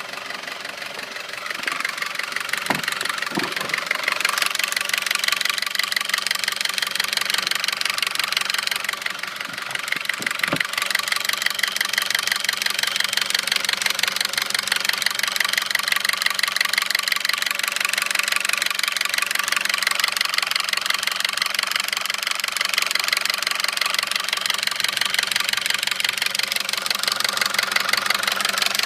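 2009 Audi A4's 2.0-litre turbocharged four-cylinder engine idling with a fast, steady knocking from the top end. The dealer links it to cam lobe wear, where they found metal flakes, and advised a new engine. A few sharper single knocks stand out within the first ten seconds.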